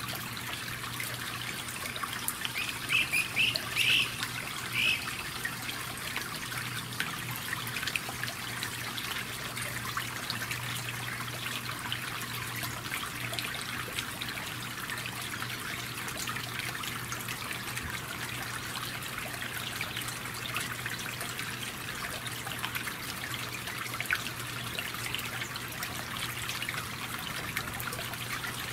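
Steady rain falling, a dense hiss full of small drop ticks, over a steady low hum. About three to five seconds in, a bird gives a few short, loud calls.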